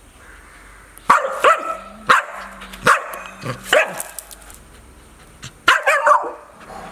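A dog barking: a run of short, sharp barks about a second in, then a pause and two more barks near the end.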